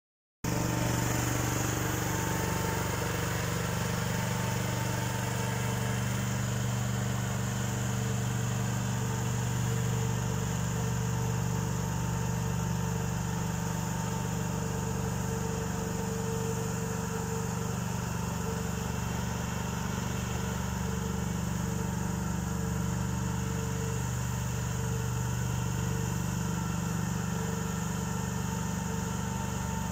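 Conrad C32 mist cannon running on a truck bed, its generator engine and big fan making a steady, unchanging hum while it blows water mist.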